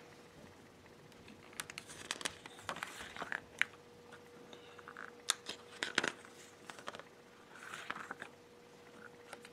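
Glossy booklet pages being handled and turned: scattered soft paper rustles and crinkles.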